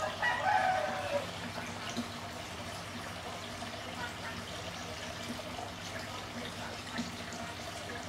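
A chicken calls once just after the start, a single falling call about a second long, over a steady background hiss.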